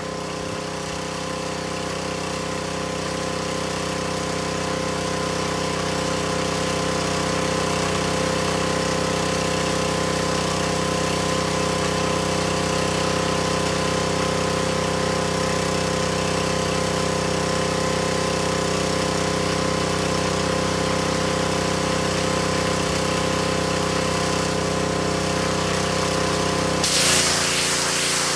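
Pressure washer running steadily, its motor note held over a hiss of spray. Near the end the motor note drops and a louder burst of hiss comes in.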